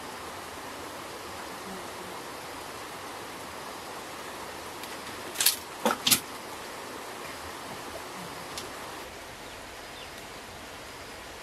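A steady hiss of outdoor background noise, broken about halfway through by three sharp knocks in quick succession.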